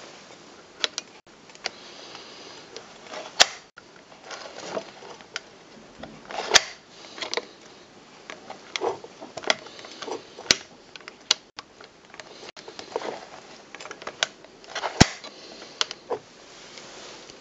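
Handling noise: irregular sharp clicks and short rustles as a hand touches and moves around a metal camera-lamp.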